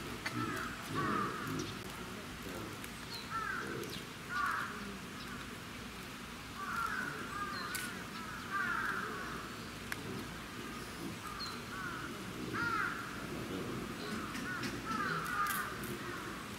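Short animal calls, each rising and falling in pitch, repeated every second or so and often two or three close together, over a low background murmur.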